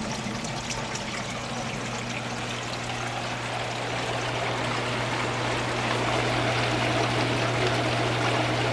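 Water pouring from a PVC return pipe into a tote of moving-bed biofilter media, churning it vigorously, over a steady low pump hum. The splashing grows louder about halfway through. The agitation is strong enough that the owner wonders whether it is too much.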